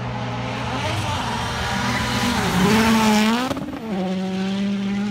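Rally car driven hard on a gravel stage, its engine revving with the pitch climbing to a peak and then dropping sharply about three and a half seconds in before holding steady.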